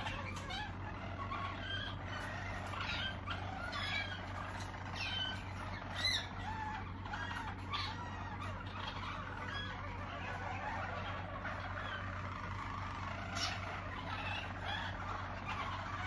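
Harzer Roller canaries singing a continuous rolling song of low trills and gliding notes, over a steady low hum.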